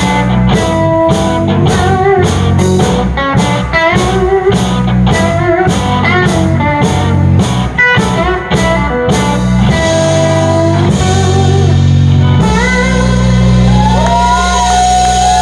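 Live blues-rock band playing: two electric guitars and keyboard over a steady drum beat for about nine seconds, then the band holds a long closing chord with bending lead-guitar notes over it.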